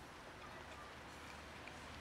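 A cat chewing dry kibble: faint, scattered crunching clicks over a low, steady background hiss.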